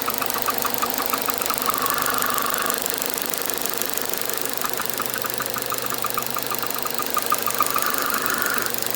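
Rapid, even ticking of about five clicks a second, twice giving way to a hissing whistle lasting about a second, after which the ticking resumes. Its source is a mechanism the recorder cannot identify.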